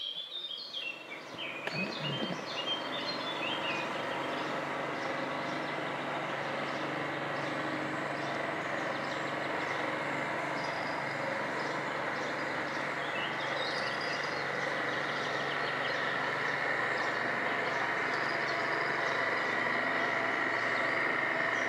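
A motor engine running steadily at a constant pitch, slowly growing a little louder. Birds chirp in the first few seconds and again about halfway through.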